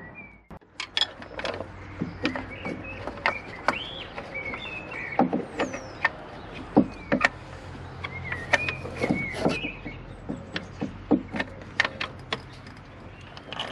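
Pry bar levering at a stuck water pump on a BMW N47 diesel engine: irregular sharp metallic clicks and knocks as the bar is worked against the pump housing. Short high chirps sound in the background.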